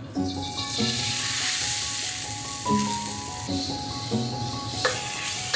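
Noodles frying in hot oil in a wok, a steady sizzle, with a brief knock near the end.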